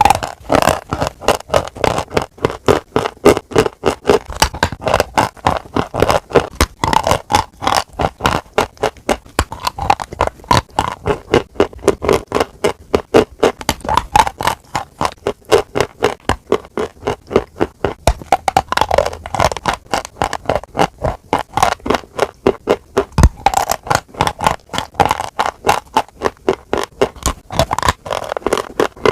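Close-miked chewing of crunchy food: rapid, regular crunches, several a second.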